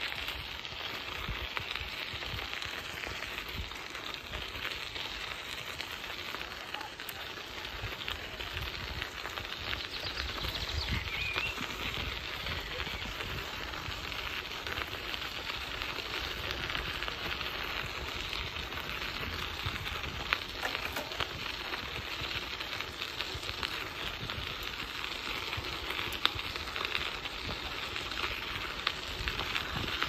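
Riding a bicycle along a paved path: a steady crackling hiss of tyres and wind, with gusts rumbling on the microphone and a few sharp clicks.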